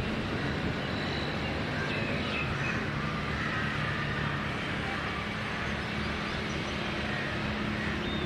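Steady outdoor background noise: a continuous low hum with faint high chirps scattered through it.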